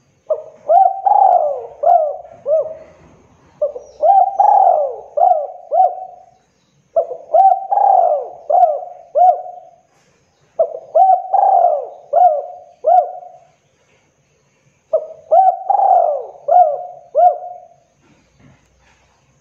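Spotted dove (tekukur) cooing: five phrases of four or five short coos each, separated by pauses of about a second.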